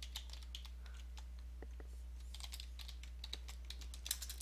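Faint keystrokes on a computer keyboard as a login password is typed: irregular single taps, with a quicker run of them near the end, over a steady low hum.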